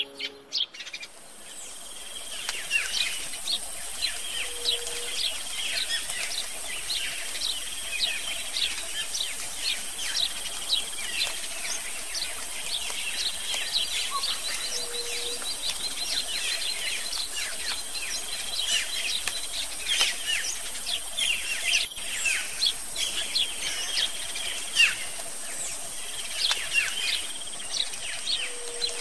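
Natural ambience of many small birds chirping and calling in a dense chorus over a steady high whine. A short low hoot sounds three times, about ten seconds apart.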